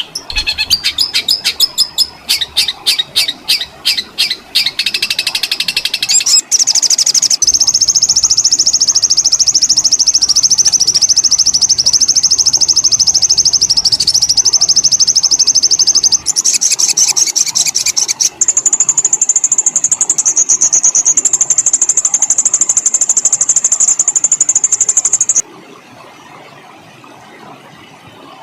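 Songbird masteran recording of fast, rough song: about seven seconds of rapid sharp repeated notes, then long very fast high-pitched trills ('ngerol' rolls), the last and highest ending abruptly about 25 seconds in, after which only faint hiss remains.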